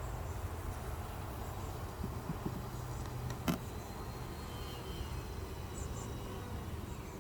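Honeybees buzzing around an opened hive, with a single sharp knock about halfway through.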